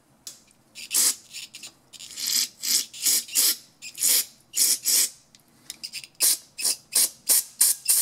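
Aerosol carburetor cleaner sprayed through a red extension straw into the port holes of a 2-cycle barrel-type carburetor body, in a rapid series of short hissing bursts, about two to three a second, with a brief pause past the middle.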